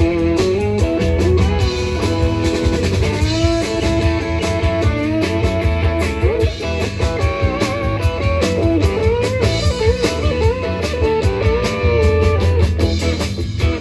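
Blues-style music with an electric guitar playing a bending lead line over bass and drums.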